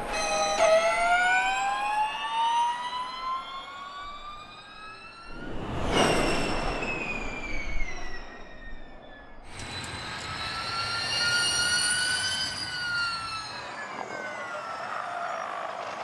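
Jaguar Gen3 Formula E car's electric motor and gearbox whining, the pitch climbing steadily as it accelerates away. About six seconds in it passes at speed with a rush of noise and the whine dropping in pitch, and a second whine later rises and then falls away.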